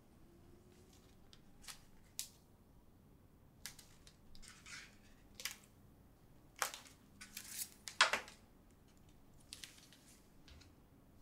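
Handling of a brown kraft-paper string-tie envelope: the string is unwound, the flap opened, and a photograph slid out. This gives a run of short, crisp paper rustles and scrapes, the loudest about two-thirds of the way through.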